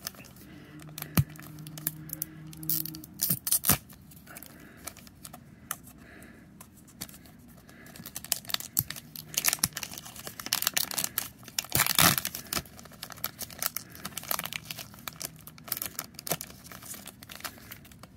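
Foil trading-card booster pack being torn open by hand and crinkled as the cards are slid out: irregular crackling and tearing, busiest about two-thirds of the way through.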